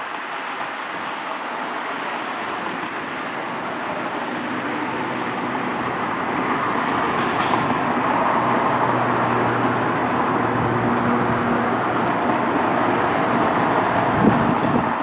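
Steady motor noise slowly growing louder, with a low engine hum through the middle and a short thump near the end.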